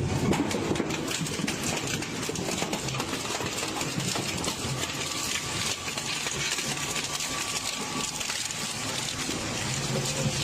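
Hydraulic press running steadily with a low hum, over dense crackling and snapping as material gives way under it; a faint steady whine sounds through the middle.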